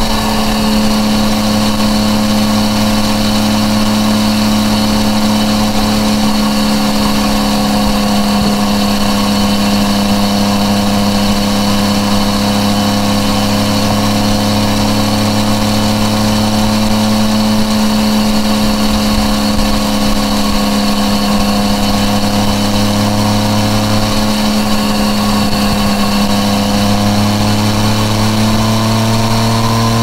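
Yamaha MT-09 Tracer's three-cylinder engine through an Akrapovič exhaust, running at a steady cruise; the engine note holds nearly level, sagging slightly past the middle and rising again near the end.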